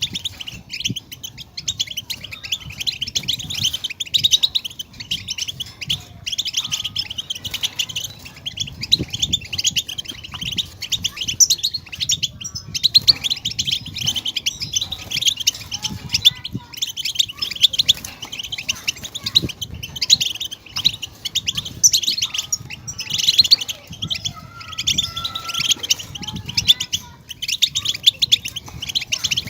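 European goldfinch song: a fast, unbroken twittering of quick chirps and trills.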